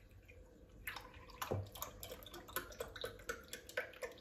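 Milk glugging out of a carton into a drinking glass, starting about a second in as a quick, uneven run of glugs and splashes.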